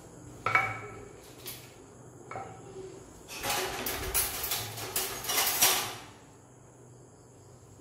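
Hands pressing and spreading pizza dough in a metal frying pan. There are two light knocks of the pan with a brief ring, then about three seconds of rubbing and scraping with small clicks, which stops about six seconds in.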